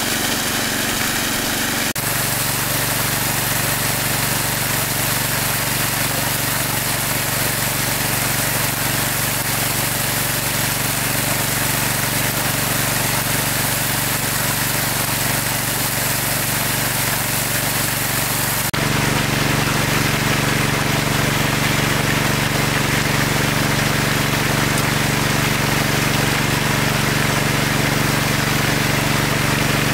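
A small engine running steadily, with a hiss over its hum. The sound changes abruptly twice, about two seconds in and again a little past the middle, after which the engine is louder.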